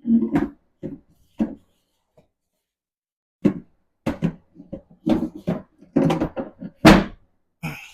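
Hard plastic parts of a Halloween animatronic knocking and clattering as a boot is worked onto the peg of the base frame: a few short knocks, a pause, then a quick run of knocks and clicks.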